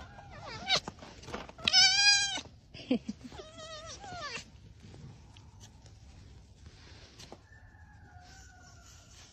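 Pet fox making high, whining calls: a loud one about two seconds in, a wavering one around four seconds, and a faint drawn-out one near the end.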